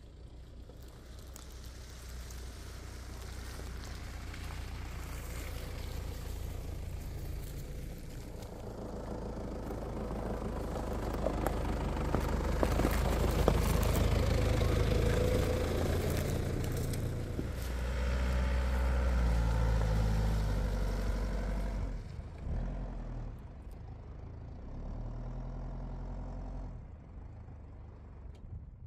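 A vehicle engine running. It swells to its loudest about halfway through, its pitch steps around twenty seconds in, then it dies away.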